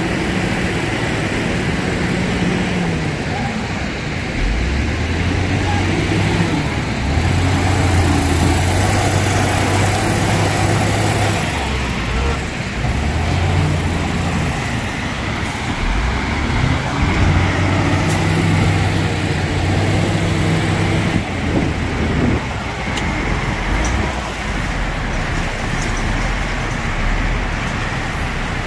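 XCMG wheel loader's diesel engine revving up, holding high for a few seconds and dropping back to idle, several times over, as it works its bucket to scoop and load stone.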